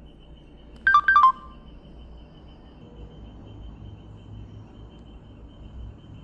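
Samsung SGH-T159 mobile phone giving a quick run of about four short electronic beeps, alternating between two pitches, about a second in; the rest is faint background hiss.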